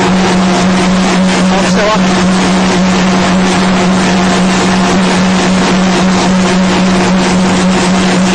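Corn puff snack extruder running in production: a loud, steady drone with a constant hiss over it.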